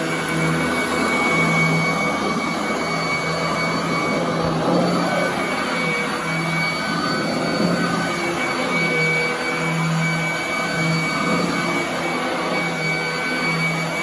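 Royal commercial vacuum cleaner running on carpet: a steady motor whine over rushing air, with a low hum that swells and drops away every second or so.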